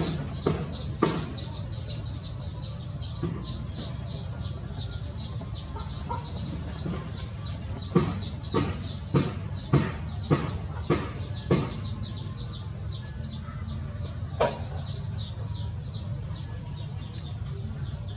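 Small birds chirping over a steady low hum, with runs of sharp knocks about every half second near the start and again in the middle.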